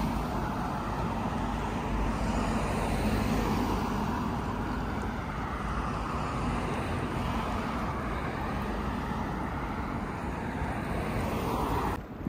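Steady road traffic: cars driving along a multi-lane city street close by. The noise breaks off abruptly near the end.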